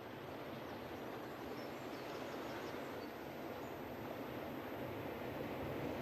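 Ocean surf washing on a beach, a steady rush that swells slowly as a wave builds. A few faint bird chirps are heard about two to three seconds in.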